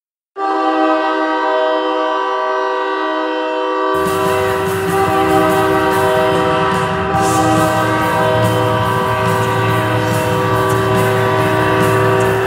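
Hockey goal horn sounding: one loud, steady, chord-like air-horn blast, much like a train horn, starting about half a second in and held without a break. About four seconds in, a noisy rumbling layer joins underneath it.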